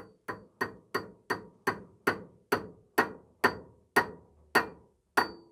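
Ball-peen hammer tapping a tight-fitting 4 mm dowel pin into a hole drilled in a Mazda B-series DOHC camshaft: about fourteen evenly spaced metal-on-metal blows, two to three a second, each with a short metallic ring.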